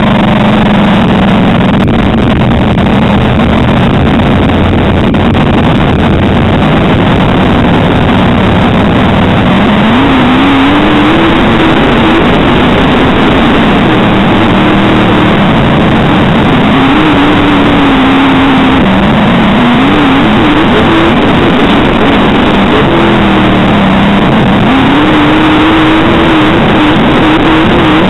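Onboard sound of a dirt-track modified race car's V8 engine, loud under a constant rush of noise; its pitch holds fairly steady at first, then from about a third of the way in rises and falls again and again as the throttle is worked on and off.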